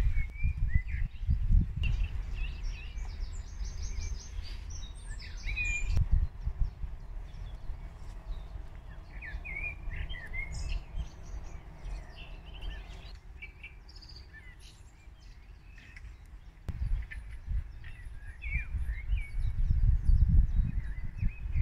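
Small birds chirping and twittering in short calls throughout, over a low gusty rumble of wind on the microphone that swells near the start and again in the last few seconds.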